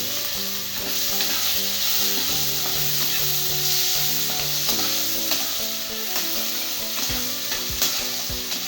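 Chopped onion sizzling loudly in hot oil in a kadai, stirred with a spatula that clicks and scrapes against the pan near the end.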